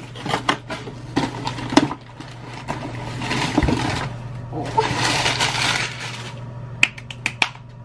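Cardboard shipping boxes being handled and unpacked: a few knocks and taps of cardboard, then two long stretches of crinkling brown packing paper being pulled out, and a few sharp taps near the end.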